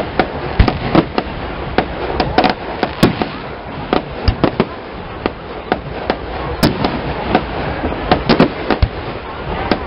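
Aerial fireworks shells bursting: an irregular run of sharp bangs and crackles, several a second, over steady background noise.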